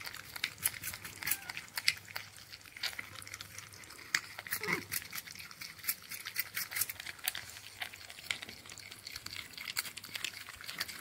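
A North American porcupine chewing a chunk of sweet potato: a dense, irregular run of wet crunching clicks from its teeth.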